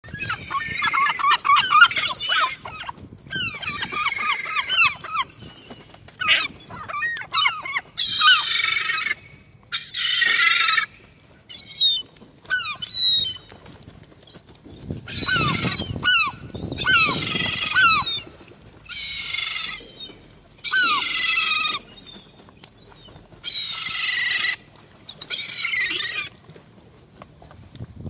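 A flock of herring gulls squabbling over food, giving repeated harsh, squealing calls in bursts of a second or two with short pauses between.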